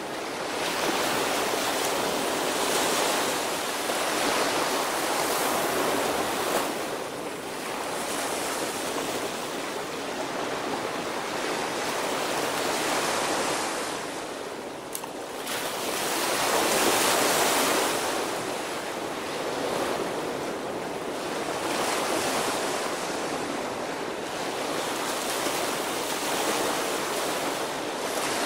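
Small waves breaking and washing up a sandy beach. The surf swells and ebbs every few seconds, loudest about halfway through.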